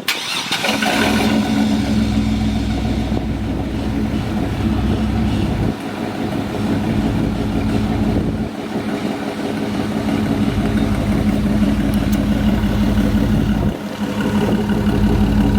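2001 Chevrolet Silverado pickup engine starting with freshly added oil, catching with a brief rise in the first second, then idling steadily.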